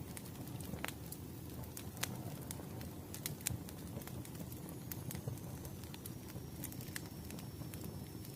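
Wood fire burning: a steady low rumble of flames with frequent sharp crackles and pops from the burning logs. A faint thin high whine comes in about five seconds in and holds, falling slightly in pitch.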